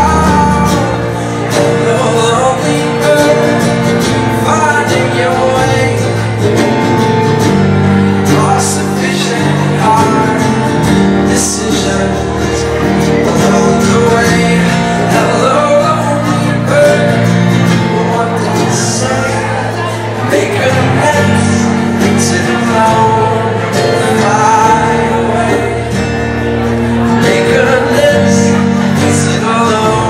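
Live band playing a song: male singing over keyboard and plucked strings.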